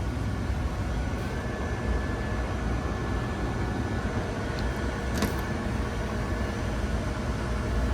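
Split-system air handler's blower running steadily, a constant rush of air with a faint steady whine. A single click about five seconds in.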